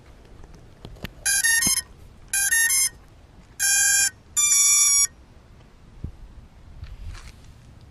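Electronic beep tones from FPV drone gear: four short melodic bursts of about half a second each, changing pitch from burst to burst, over a faint low rumble of wind.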